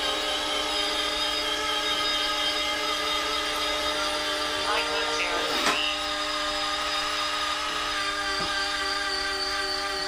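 Electric retractable landing gear of a large RC warbird model cycling: small electric motors giving a steady whine of several tones, which shifts slightly about halfway through.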